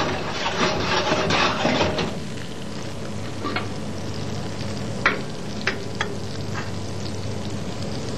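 Butter sizzling in a frying pan as it melts and is browned, with a louder stretch in the first couple of seconds and then a steadier sizzle broken by a few short sharp clicks.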